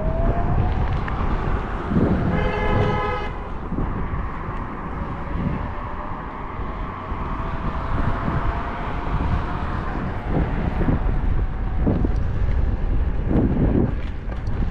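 Wind buffeting the microphone during an Apollo Go electric scooter ride, with the electric motor's whine rising in pitch at the start and then holding steady. About two seconds in, a horn sounds once for about a second.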